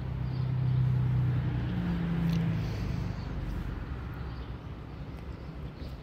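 Low engine hum of a passing vehicle, swelling over the first second and fading away by about three seconds in, with a few faint bird chirps.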